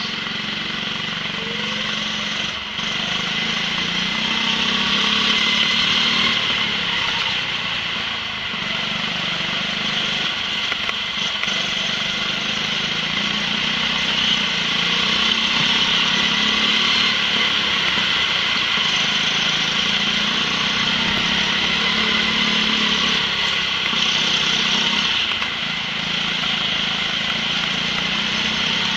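Go-kart engine running continuously as the kart is driven at speed, heard from the driver's seat, its note wavering up and down with the throttle through the corners.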